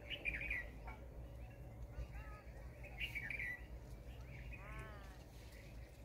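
Purple sunbird chirping in short, high bursts, at the start and again about three seconds in, with a lower run of arching notes near the end, over a steady low hum.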